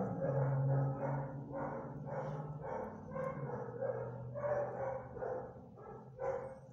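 Dog panting close up, about three breaths a second, over a low steady hum.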